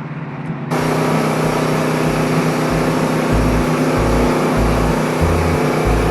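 Wood-Mizer LT15START portable band sawmill running steadily, its engine humming under a loud, even rushing noise. The sound comes in abruptly less than a second in.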